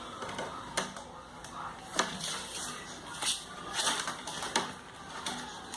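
Irregular light taps and clicks with short scratchy rustles, a few sharper knocks among them, spaced unevenly.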